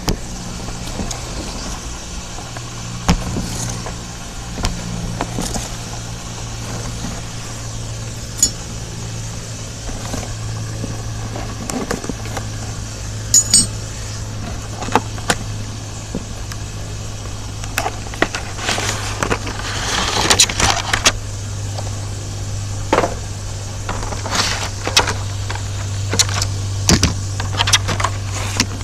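A cardboard toy box and its plastic packaging tray being opened and handled: scattered crinkles, clicks and rustles, busiest in the second half, over a steady low hum.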